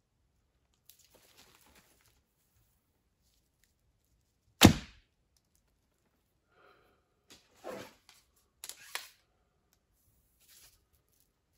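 A shot from a traditional wooden bow: a single sharp crack of the released string and the arrow striking, a little under halfway through. Later comes soft rustling and scraping as the next arrow is drawn and nocked on the bow.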